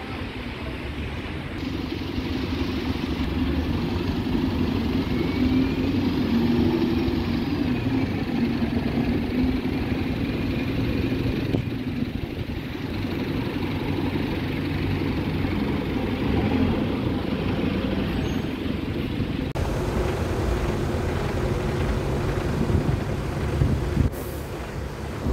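London bus engines running at a bus stop and pulling away, with a faint whine that rises and falls during the first ten seconds, over general street traffic. The sound changes abruptly at a few points where the footage is cut.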